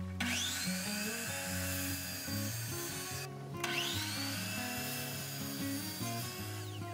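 Miter saw motor spinning up with a rising whine and its blade cutting through a wooden board, twice, with a brief break a little over three seconds in; the second run winds down with a falling whine near the end.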